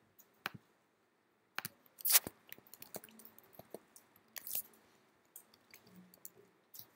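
Irregular computer keyboard and mouse clicks, a handful of separate sharp taps with the loudest cluster about two seconds in.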